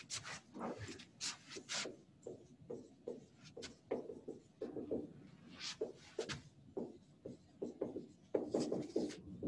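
Marker or chalk writing on a classroom board: a run of short, irregular strokes as equations are written out.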